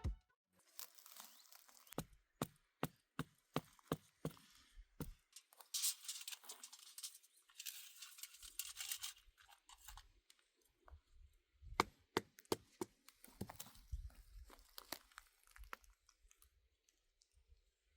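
Faint, scattered knocks and taps, with a stretch of rustling or tearing about six to nine seconds in.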